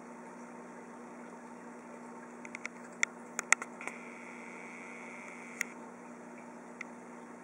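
Steady hum and hiss of an aquarium air pump driving a bubble wall. About halfway through comes a cluster of sharp clicks, then a faint high whine for a second and a half, and two more single clicks later.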